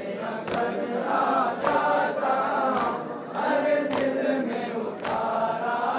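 A crowd of male mourners chanting a nauha together, with a sharp chest-beating (matam) strike in unison about once a second.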